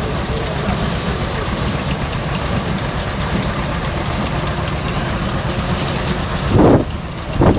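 An engine running steadily with a fast, even ticking over its drone. Two short, loud low thumps come near the end.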